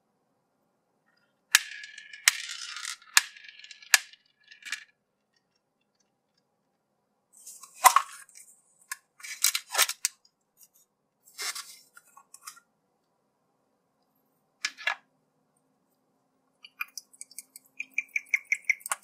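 Plastic capsule-toy packaging being handled: sharp clicks of a hard plastic gashapon capsule and crinkling of a clear plastic bag, in several short spells with silent gaps between. Near the end comes a quick run of small ticks.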